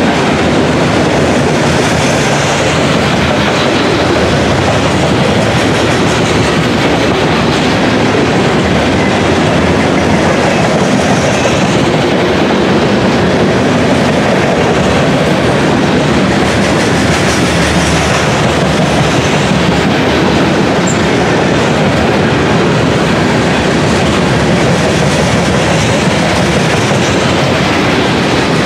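Freight train's covered hopper cars rolling past close by: a loud, steady rumble and clatter of steel wheels on the rails.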